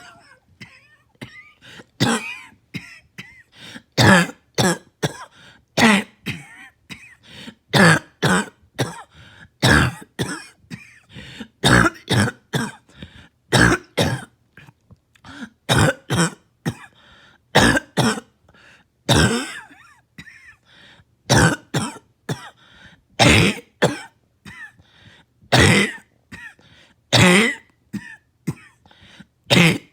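Repeated coughing, one cough every second or so with near silence between, the louder ones often coming in quick pairs, mixed with throat clearing.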